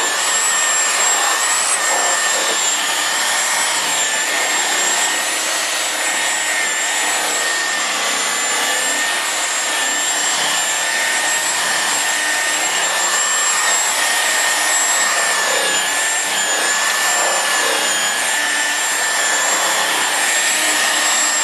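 Electric paint polisher (buffer) running continuously on the truck's paintwork, a steady high motor whine that wavers slightly in pitch as the pad is worked.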